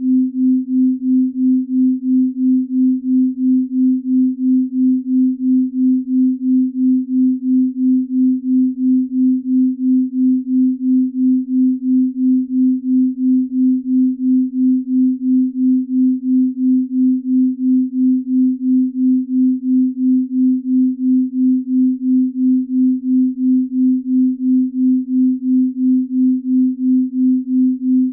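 Binaural-beat tone: a steady pure sine tone pitched near 250 Hz, pulsing evenly about twice a second as the two slightly detuned tones beat against each other.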